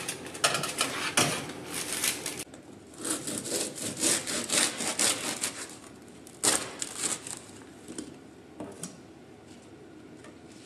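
A serrated bread knife sawing through a crusty, freshly baked Finnish rye loaf on a wooden cutting board, in quick back-and-forth strokes about three a second, with a few more strokes a little later. Before that, a metal baking tray scrapes as it is pulled out of the oven.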